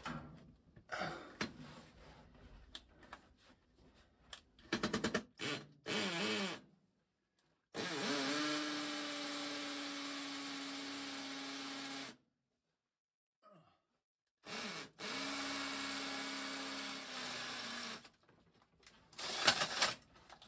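Hammer drill boring through one face of a concrete block wall: a few short trigger bursts, then two steady runs of about four and three seconds, the motor note settling a little lower as each run starts.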